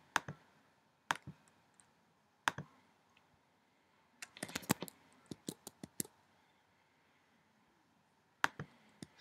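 Scattered sharp clicks from a computer mouse and keyboard. Single clicks come in the first few seconds, a quick run of clicks follows from about four to six seconds in, and a few more come near the end.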